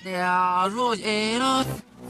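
A cartoon character's voice played backwards: one drawn-out vocal sound of about a second and a half, its pitch held, dipping briefly and held again, then cut off abruptly.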